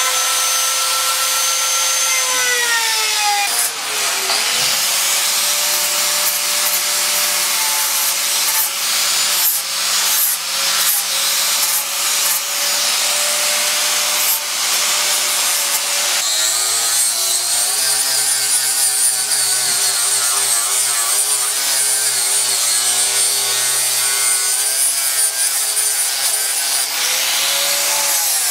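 Electric angle grinder with a sanding disc running against the carved wood, a steady high whine over a rasping grind. Near the start a smaller rotary carving tool whines and spins down.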